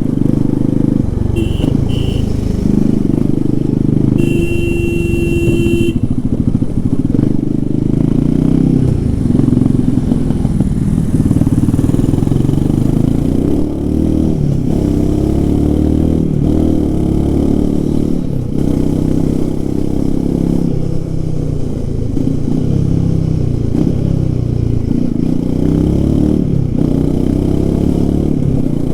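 Royal Enfield Himalayan 450's single-cylinder 452 cc engine under hard riding, its pitch climbing and dropping again and again as the rider accelerates and shifts. A vehicle horn sounds: two short beeps early on, then a longer blast about four seconds in.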